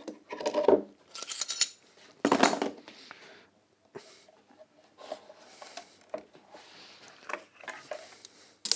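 Hard tools and workpieces being handled on a workbench: a string of clinks and knocks, three louder clatters in the first three seconds, then fainter knocks.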